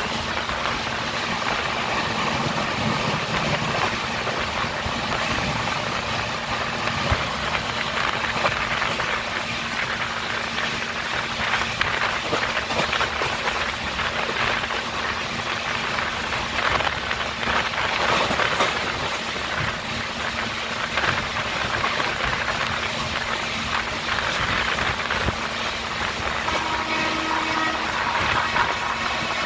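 Express passenger coach running at high speed, heard from its open doorway: a steady rush of wind and rolling wheels on the rails, with scattered clatters. A few short pitched tones sound near the end.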